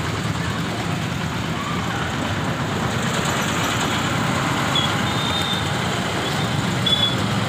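Steady road traffic noise from vehicles and motorbikes waiting in a queue, with a few short high beeps in the second half.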